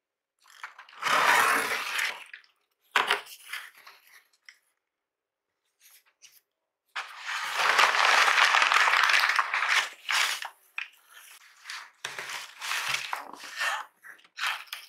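A cardboard shipping box being unpacked by hand: box flaps and crumpled kraft packing paper rustling in bursts, the longest and loudest from about seven to ten seconds in, with plastic wrap crinkling near the end.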